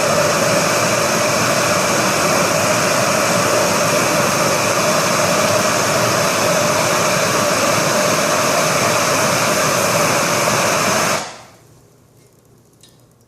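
Handheld gas torch burning steadily, heating a copper pipe fitting so the solder will melt into the joint. The flame noise is loud and even, then stops abruptly about eleven seconds in as the torch is taken away.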